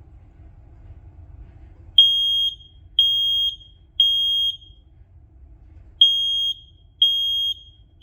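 Kidde i4010 smoke alarm sounding on test: loud, high-pitched half-second beeps starting about two seconds in, three in a row, a pause, then the next group of three beginning. This is the temporal-three (code 3) fire-evacuation pattern.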